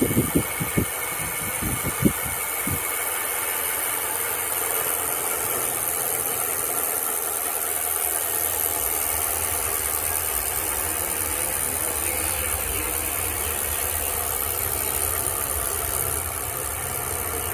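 Shimano Deore FH-M525 rear hub freewheeling, its freehub pawls clicking so fast they run together into a steady buzz, with a few knocks in the first three seconds.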